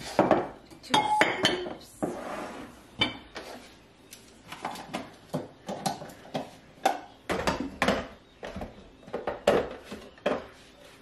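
Kitchen ware and utensils being handled while a pot of coffee is set up: a busy run of clinks, knocks and clatter, one with a brief ringing tone about a second in.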